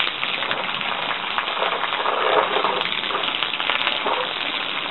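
Water spraying down onto a burning toy dump truck and the asphalt around it: a steady spattering hiss as the fire is put out.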